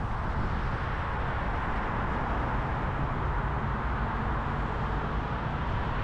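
Steady road noise of a car at highway speed: tyre and wind noise over a low rumble.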